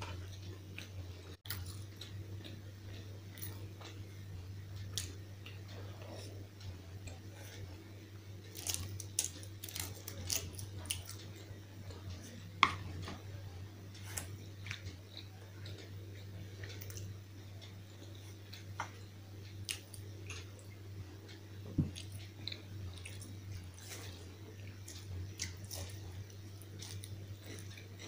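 Close-up eating sounds: chewing and biting on hand-eaten rice and a fried pakoda, with short sharp clicks and crunches scattered throughout, the loudest a little before halfway and again about three-quarters through. A steady low hum runs beneath.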